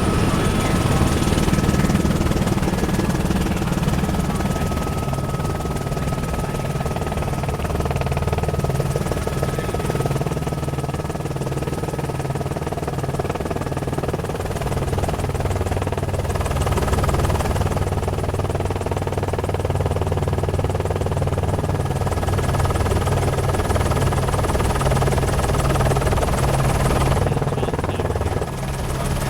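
A news helicopter's engine and rotor running steadily, heard as an even, continuous drone.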